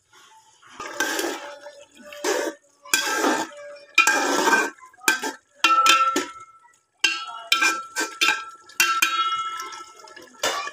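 Metal ladle stirring and scraping in an aluminium pot of vegetable curry: a series of scrapes and clanks, with a ringing metallic note in the second half.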